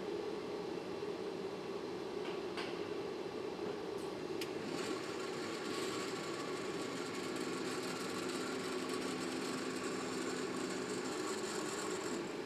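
Steady hum of running industrial machinery, with a hiss joining about four and a half seconds in and a few light clicks.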